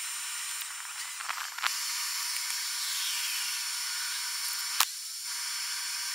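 Radio receiver static while the antenna is swung about: a steady hiss with no low end, marked by two sharp clicks, one about a second and a half in and one near five seconds, and a faint gliding whistle around three seconds.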